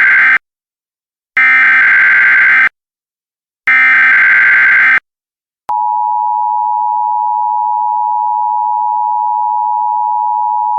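Emergency Alert System SAME header: the end of one screeching burst of digital data tones, then two more bursts about a second long each. About six seconds in, these are followed by the long, steady EAS attention tone that announces the next alert.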